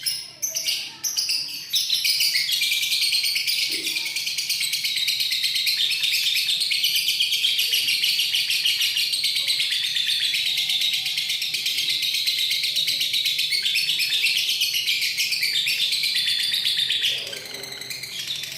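Lovebird singing a ngekek: after a few short chirps, one long unbroken run of rapid, high-pitched chattering that lasts about fifteen seconds and stops near the end.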